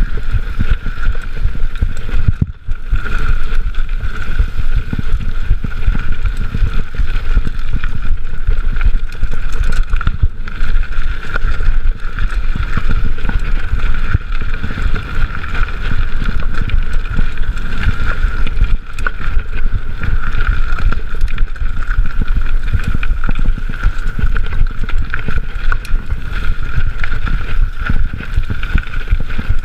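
Mountain bike rolling fast over a dirt trail, heard through a chest-mounted GoPro: loud wind buffeting on the microphone and a constant jittery rattle of bumps, with a steady hum above it. The noise drops briefly about two and a half seconds in.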